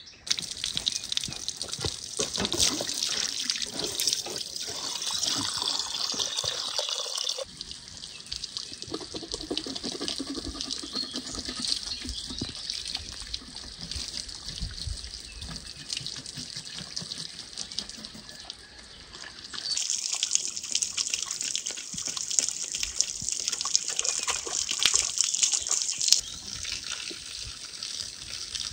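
Water streaming from a hose onto a large whole fish as it is washed and cleaned on a wooden table. The steady rush of water changes abruptly in loudness a few times.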